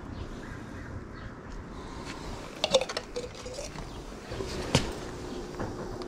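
Handling noise from working PVC drain fittings: a quick cluster of sharp plastic clicks and taps with a short squeak about halfway through, then one more sharp click a little later.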